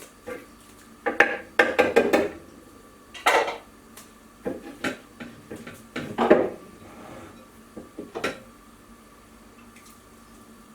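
A utensil clinking and scraping against a mixing bowl in a run of irregular knocks, thickest about a second in, with more near three, five, six and eight seconds, as beaten eggs are added to the lemon curd mixture.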